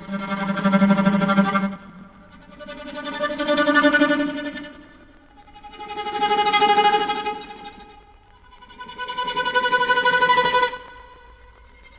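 Sampled bowed string instrument from the Chronicles Bukhu Kontakt library playing four long held notes at different pitches, each swelling in and fading out over about two seconds with a short gap between.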